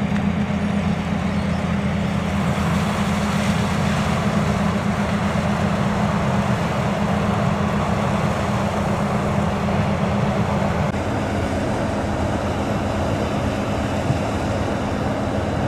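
New Holland combine harvester running steadily as it cuts dry corn stalks: a loud engine-and-machinery drone. The low hum weakens about eleven seconds in.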